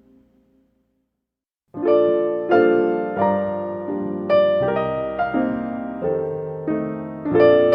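Background music: a held tone fades out, and after about a second of silence solo piano begins, playing a slow run of struck chords.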